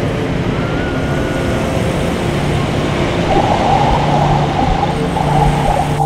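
Ocean surf breaking on a beach, a loud steady rushing roar, with soft background music underneath.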